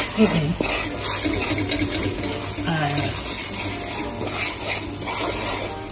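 Curry powder, butter and onions sizzling in a pot while a wooden spoon stirs and scrapes through them: the curry being cooked out in the fat before the meat goes in.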